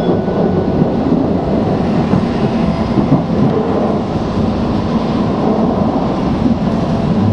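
Tokaido Shinkansen train running at speed, heard from inside the passenger car: a loud, steady low rumble of wheels on rail.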